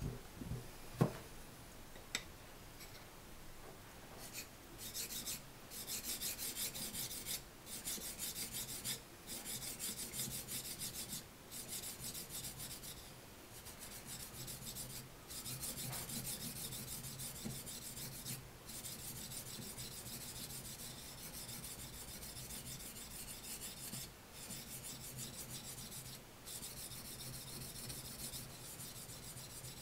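A small namazori kogatana blade rubbed back and forth on a wet natural Japanese waterstone during medium-grit sharpening. A fine, hissy scraping comes in runs of quick strokes with short pauses between them. A couple of sharp knocks near the start come as the stone is settled on its wooden base.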